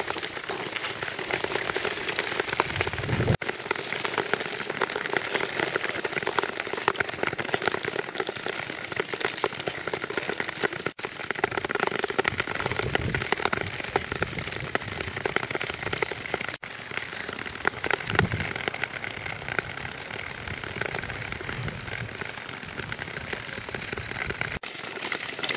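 Many Nordic tour skates scraping and hissing across natural lake ice, thick with small clicks and ticks, breaking off for a moment about four times.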